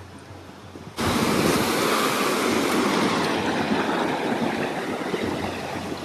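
Mountain stream rushing over rocks: a steady loud rush of water that comes in suddenly about a second in, after a faint first second.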